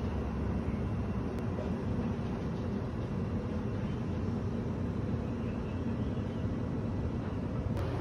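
Steady low rumble of outdoor background noise, even in level throughout.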